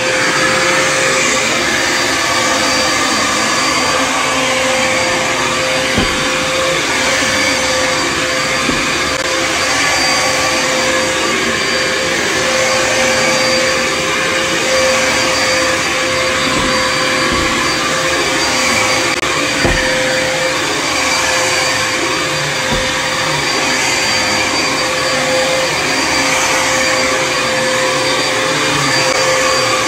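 Corded upright vacuum cleaner running steadily as it is pushed over carpet, a constant motor hum with a whine under the rush of air. A few brief low bumps now and then.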